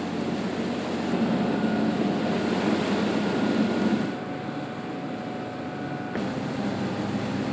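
Motorboat engine running steadily under way while trolling, with the rush of the wake; the sound changes abruptly about four seconds in and again about six seconds in.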